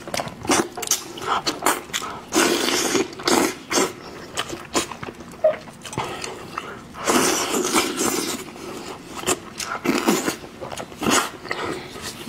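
Close-miked eating sounds: wet chewing, lip smacking and slurping as meat is torn and sucked off a cooked sheep's head, in irregular clicks with two longer slurping stretches.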